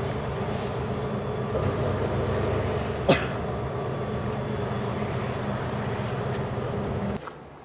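Steady rumble of a moving vehicle, heard from inside, with one sharp click about three seconds in; the rumble cuts off abruptly near the end.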